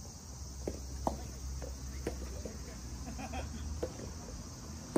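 Soft tennis rally: several sharp pops of the rubber ball off rackets and the court, irregularly spaced, the loudest about a second in. A steady high hum of crickets runs underneath.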